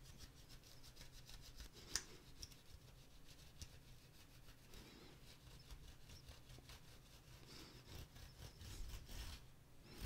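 Faint rubbing of a microfiber cloth wiping over a plastic TV-remote frame, with a light click about two seconds in.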